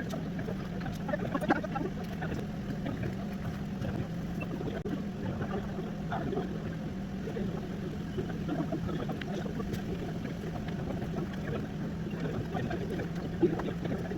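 A small electric motor running with a steady hum, with faint scattered ticks and handling noise over it.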